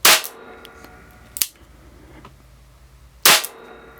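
Zoraki R1 9mm blank revolver firing two blank shots, single action, about three seconds apart. A short sharp click comes between them.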